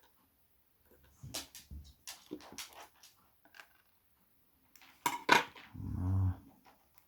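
Small metal lock parts and tweezers clicking and clinking in irregular taps while a lock is taken apart, with the sharpest clinks about five seconds in. Just after those comes a short low hum.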